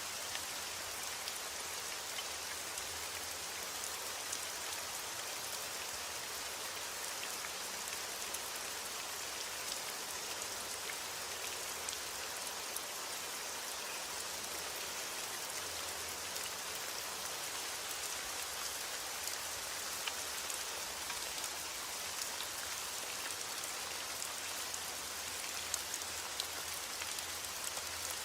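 Steady, even rain falling, with scattered sharper ticks of single drops striking.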